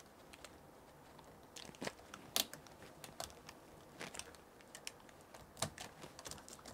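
Faint crinkling and rustling of insulating tape being handled and pressed down over a laptop keyboard's ribbon-cable connector, with several sharp clicks scattered through.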